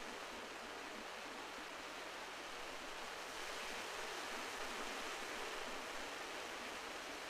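Steady wash of sea surf on the shore, swelling slightly midway.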